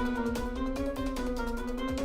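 Instrumental background music: a tune of many quick, short notes over a held melody line.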